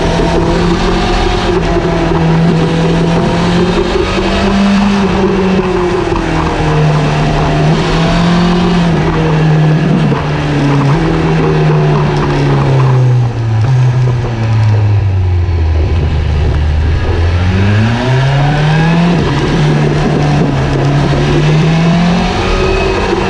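Motorcycle engine under way, heard from a camera mounted by the rear wheel, over a steady rush of road and wind noise. The revs hold fairly level, drop for a few seconds past the middle, then rise again.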